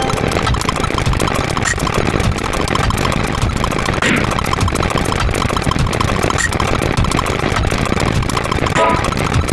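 A dense, steady din of short digital sound effects firing in very rapid succession, many clicks a second, piling up into a continuous rumbling drone.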